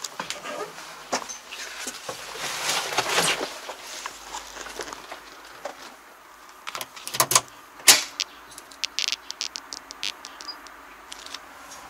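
Handling noises from getting into a Kubota MZ755 tractor cab and putting the key in the ignition: rustling and knocks, a few sharp clicks, then keys jangling in a quick run of light clicks near the end. The engine is not yet running.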